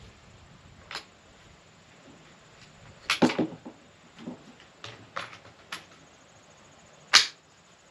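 Two rifle shots, one about three seconds in and a sharper one near the end, with a few lighter clicks between them.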